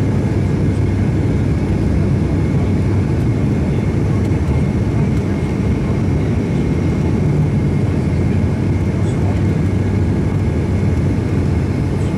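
Steady cabin drone of an ATR 72's twin turboprop engines and propellers on approach, heard from inside the cabin: a loud, even low hum with a faint thin high tone above it.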